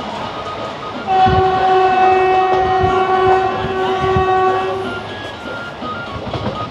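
A train horn sounds one steady blast of about four seconds, starting about a second in. Under it, the wheels of the moving ICF coaches clatter on the rails.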